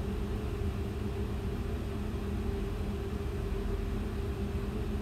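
Steady machinery hum: a constant low drone with a couple of faint steady tones, and no strokes or changes.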